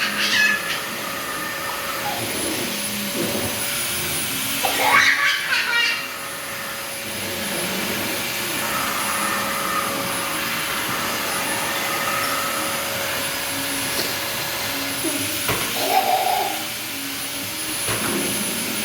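Vacuum cleaner running steadily with a constant motor whine. About five seconds in there is a brief high-pitched cry over it.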